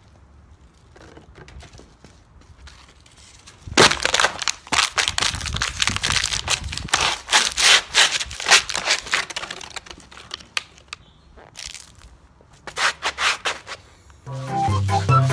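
An empty plastic bottle being crushed underfoot on concrete: a dense run of crackling and crunching from about four seconds in until about ten seconds. A few more sharp cracks follow, and music starts near the end.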